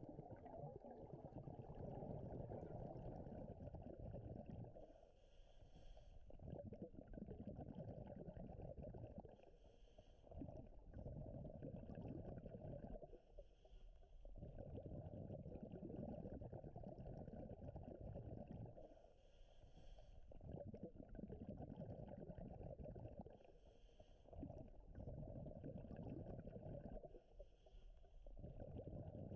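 Scuba diver breathing through a regulator underwater: long stretches of low bubbling from exhaled air, each broken by a short hissing inhale, about every four to six seconds.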